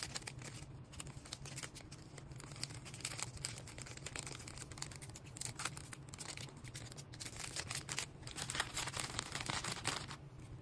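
Plastic packaging being handled by hand: crinkling and rustling, with short tearing sounds, over a low steady hum.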